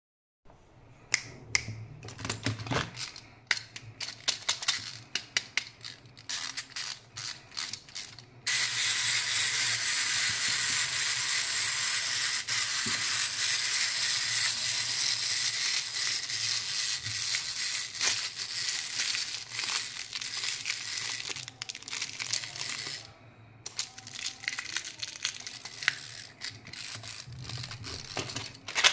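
Plastic candy containers and small toys handled by hand, with light clicks and rattles. From about eight seconds in, a small toy's mechanism runs with a steady high whir for about fifteen seconds, then stops and the handling clicks return.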